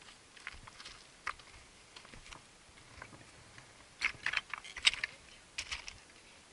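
Hiking boots stepping on loose, broken rock: irregular crunches and stones clinking underfoot, with a louder run of clatter about four to five seconds in.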